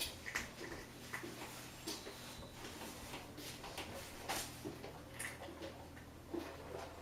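Irregular light clicks, about one every second or less, over a steady low hum: the cycle selector dial of a Hoover H-Wash 500 washing machine being turned through its programmes.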